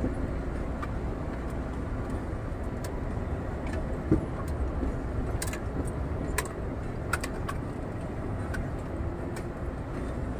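Steady low drone of a Scania R440 truck's straight-six diesel and road noise heard inside the moving cab, with light rattles and clicks from the cab. A single louder knock comes about four seconds in.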